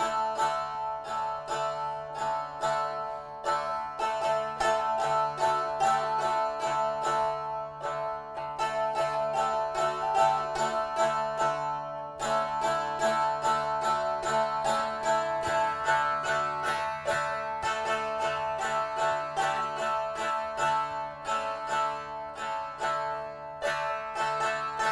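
A fretted wooden box zither being strummed quickly, a plucked melody over steady ringing drone strings.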